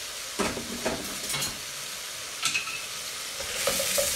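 Chopped onions and garlic sizzling in a stainless steel stockpot on a gas hob, stirred with a wooden spoon. A few knocks and one short metallic clink of pan and lid come first, and the sizzling gets louder near the end.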